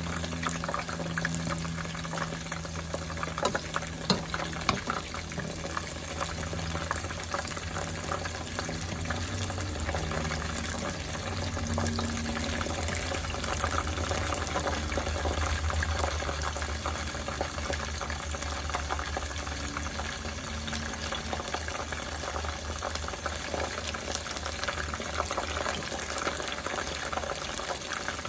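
Battered asparagus and okra deep-frying in a pot of hot oil: a steady bubbling crackle over a low hum. A few sharper taps of the tongs against the pot come in the first few seconds.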